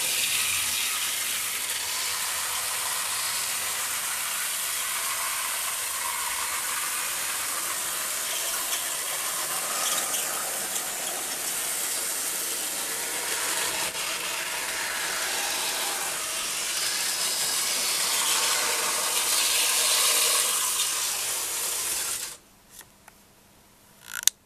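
009 narrow-gauge model train running round the layout, hauled by a model of the locomotive Mountaineer: a steady, high rattling whirr of the small motor and wheels on the track. It cuts off suddenly about 22 seconds in, and a single click follows near the end.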